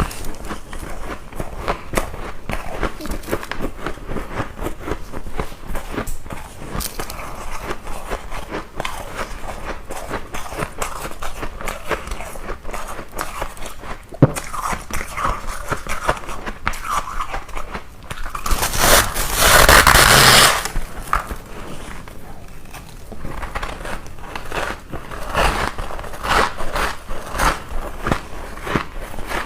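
Ice being bitten and chewed close to the microphone: a dense, irregular run of sharp crunches and cracks, with a louder, longer burst of crunching noise about two-thirds of the way through.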